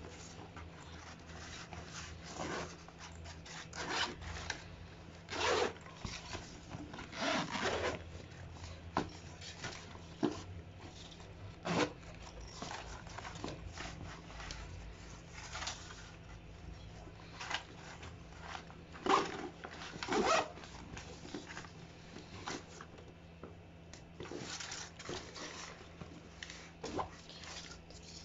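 Zippers on a Nike Tanjun backpack being pulled along and the bag's fabric and webbing straps rubbing as it is handled, in short irregular rasps and rustles.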